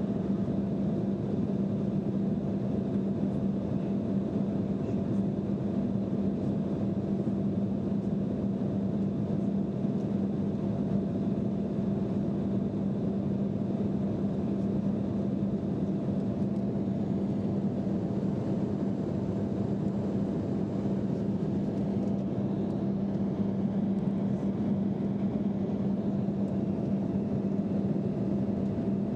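Jet airliner cabin noise in flight: a constant drone of the engines and rushing air, with a steady low hum throughout.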